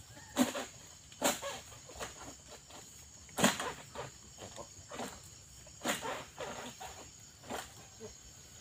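Pole-mounted oil palm harvesting sickle (egrek) cutting at the palm's fronds: sharp cracks and rustles every second or two, the loudest about three and a half seconds in. A steady high insect whine runs behind.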